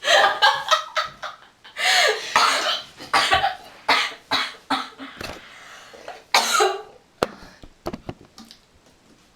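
A young woman coughing repeatedly in short, breathy bursts, a couple of them longer and louder. A few sharp clicks follow near the end.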